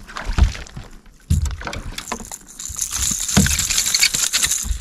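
Rod-and-reel handling noise as an angler fights a hooked smallmouth bass from a boat: several dull knocks, and a steady high hiss from about halfway through.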